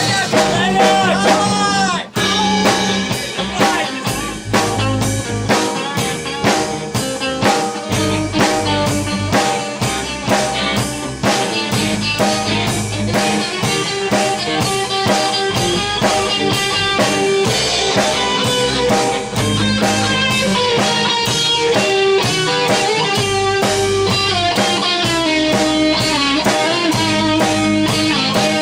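Amateur rock band playing a song with guitar and drum kit to a steady beat, with a brief break about two seconds in.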